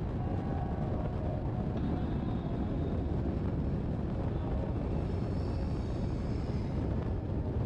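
Steady roar of wind buffeting the microphone in flight with a paraglider, heaviest in the low end and unbroken throughout.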